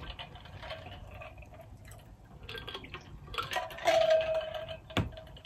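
Drinking from a stainless-steel insulated water bottle: liquid sloshing and gulping, loudest around four seconds in, followed by a single sharp knock near the end.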